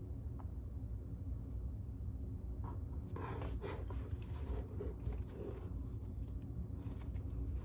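Leupold lens cleaning pen rubbed across a riflescope lens in a second cleaning pass: soft, irregular scratchy rubbing strokes over a steady low hum.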